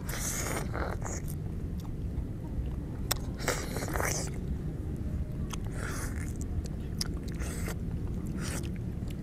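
Fresh orange wedges being bitten, sucked and chewed: wet, juicy slurping in about five short bursts, with small mouth clicks between.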